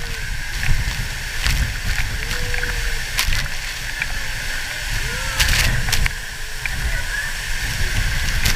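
Waterfall of many thin streams pouring into a shallow pool: a steady rush of falling water with a deep rumble beneath it, broken by a few sharp ticks.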